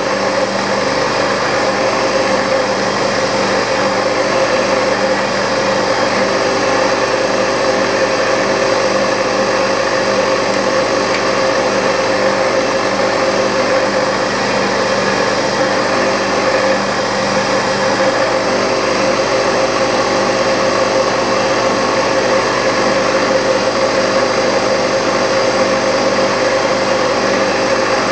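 Milling machine running at high spindle speed with a small drill bit drilling into brass: a steady machine hum with several constant tones that does not change.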